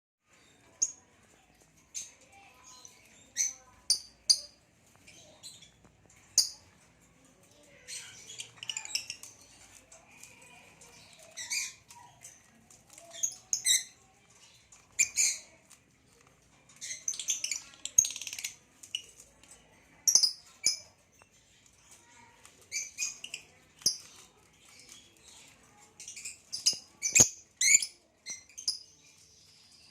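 Nyasa lovebirds (Agapornis lilianae) chirping: sharp, high-pitched calls in irregular clusters, with spells of rapid chattering.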